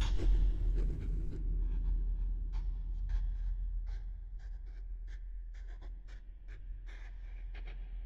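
Pencil scratching on paper in short, irregular strokes, as a sketch is drawn, over a steady low hum.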